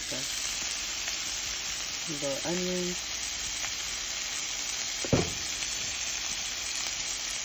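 Diced Dominican salami sizzling steadily in a hot non-stick frying pan, with one sharp knock about five seconds in.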